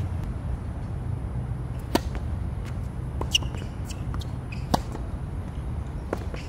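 Tennis rally on a hard court: a few sharp pocks of the ball off racket strings and court surface, the loudest about 2, 3.5 and 4.75 seconds in, over a steady low rumble.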